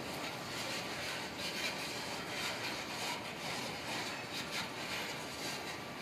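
Freight train of covered hopper cars rolling past: a steady noise of steel wheels on the rails with faint irregular clicks.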